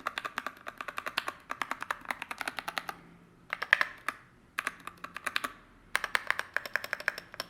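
Montech MKey TKL mechanical keyboard with Gateron brown tactile switches being typed on fast, in four quick runs of keystrokes with short pauses between them. The typing has a thocky sound.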